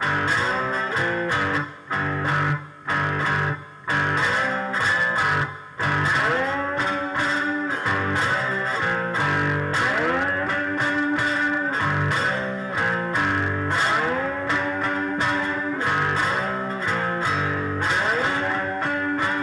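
Three-string fretless cigar box guitar playing an instrumental blues passage: notes slide up in pitch into held tones, over repeated low bass notes.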